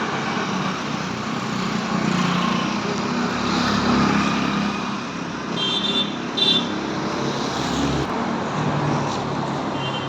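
Steady traffic noise with a vehicle engine running, and two short high-pitched tones a little past the middle.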